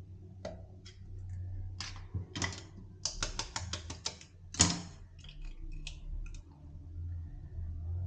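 Light clicking taps of a knife blade against an eggshell to crack it: a quick run of taps about three seconds in, a sharper knock just after, then a few fainter clicks.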